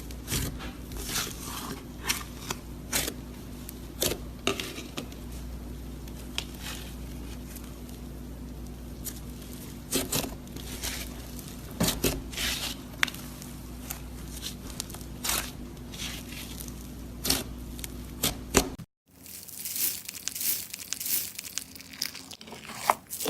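Slime being squeezed and worked by hand, giving irregular crackling pops and squelches. The sound drops out for a moment near the end and the crackling picks up again.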